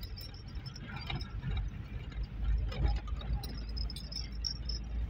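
Vehicle driving on a rough dirt track, heard from inside the cabin: a low engine and road rumble that grows louder about halfway through, with small loose items rattling and clinking over the bumps.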